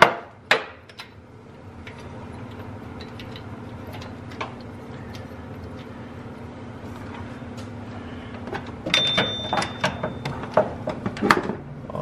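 Metal-on-metal clicks and knocks of hand tools and parts at the idler pulley and its bracket in the engine bay: a sharp click about half a second in, then a cluster of clicks and taps near the end with a brief high squeak among them. A faint steady low hum runs underneath in between.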